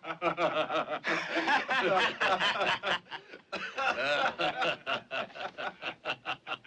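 Several men laughing together at the stranger, a long bout of mocking laughter. In the second half it breaks into quick ha-ha pulses, about five a second.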